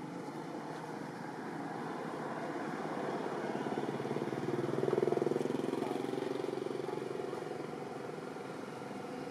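Steady hum of distant motor traffic, with one vehicle's engine growing louder about five seconds in and then fading.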